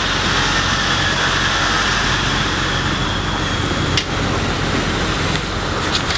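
Steady rushing wind and road noise from riding a bike along a street, with a sharp knock about four seconds in and a couple of clicks near the end.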